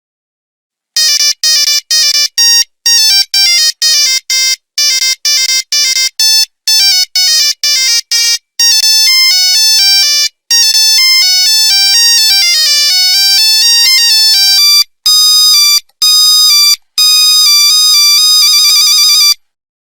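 Nokia 3310 monophonic ringtone playing a beeping melody of single notes. The notes are short and clipped at first, then longer and held with brief breaks, and it ends in a quick warbling trill.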